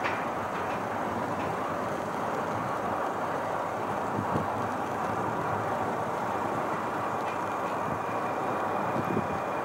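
Boeing 747's four jet engines at takeoff thrust as it lifts off and climbs out: a steady, even roar. A thin high whine comes in about two-thirds of the way through.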